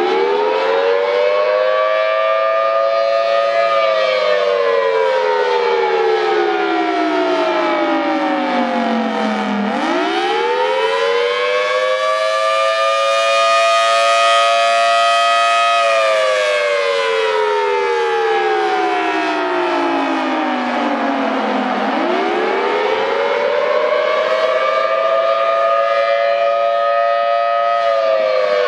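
Federal Signal Thunderbolt 1000T tornado siren sounding the attack signal: a loud wail whose pitch climbs quickly, levels off for a few seconds, then slides steadily down before climbing again, about every twelve seconds.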